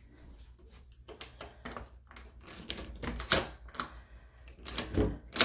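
A stiff door being worked open: clicks and rattles of its deadbolt and knob, then louder knocks and thuds from about three seconds in as the hard-to-open door is pulled and pushed.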